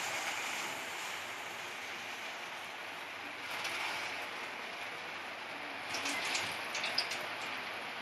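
Semolina dough dumpling deep-frying in hot oil: a steady sizzle, with a few sharper crackles and pops about six to seven seconds in.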